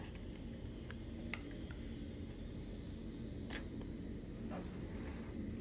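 A few faint, sharp clicks of the plastic key fob shell being handled and eased apart, over steady low background noise.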